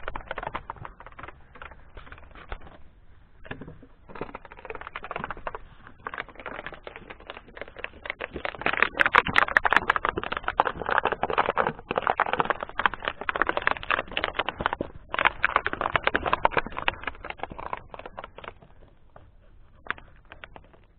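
A dog biting and chewing an empty plastic water bottle, the thin plastic crackling and crinkling in dense runs of clicks. It is loudest through the middle stretch and fades near the end.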